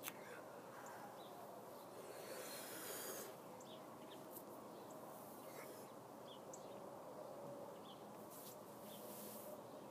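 Quiet room noise with a person breathing faintly, two soft drawn breaths about two seconds in and near the end, and small mouth clicks; no burp sounds.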